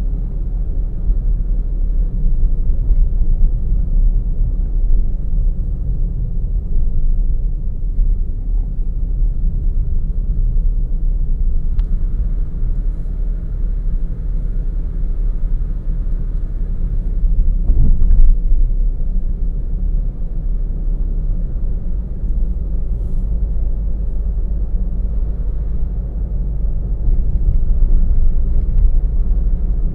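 A car driving along a road: a steady low rumble of road and engine noise, swelling briefly about eighteen seconds in.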